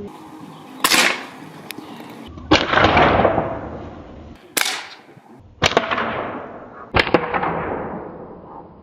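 SMK QB78 CO2 air rifle being fired: five sharp cracks a second or two apart, the second, fourth and fifth trailing off over a second or more.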